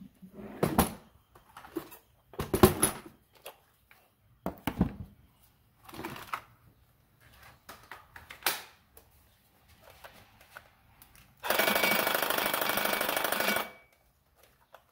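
Scattered knocks and clatter of tools being handled, then a cordless reciprocating saw runs for about two seconds against a steel skid plate clamped in a vise. The blade is struggling to start its cut in the metal.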